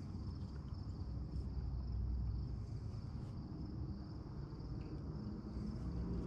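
Crickets trilling steadily in a continuous high chirring, over a low rumble.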